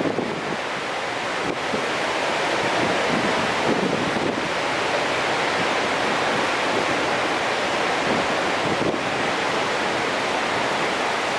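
Steady rushing roar of the High Falls, a large waterfall on the Genesee River, with wind buffeting the microphone.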